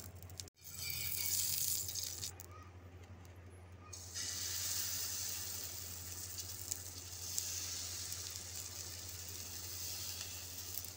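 Urad dal and rice chila batter sizzling as it is poured and spread with a ladle on a hot iron tawa: a steady hiss, strongest from about four seconds in, over a steady low hum. The sound drops out for an instant about half a second in.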